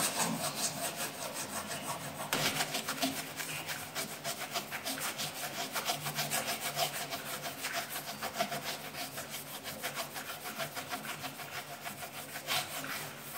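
Rapid, steady back-and-forth rubbing strokes, several a second, of a tissue wiping a wooden surface, easing off near the end.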